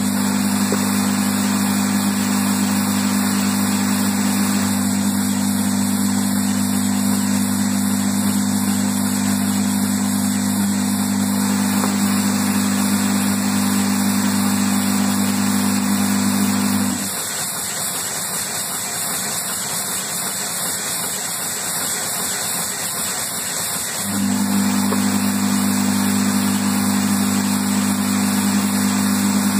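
Steady machinery noise of a running production line: a broad hiss under a strong low hum. The hum cuts out about seventeen seconds in and comes back about seven seconds later.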